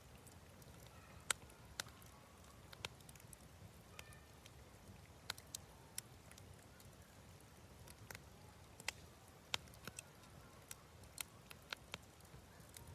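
Wood campfire crackling, with sharp, irregular pops and snaps a second or so apart over a faint steady background.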